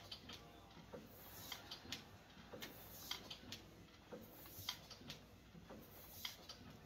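Sole elliptical trainer in use, giving off faint clicks in pairs, one pair about every second and a half in time with the pedal strides.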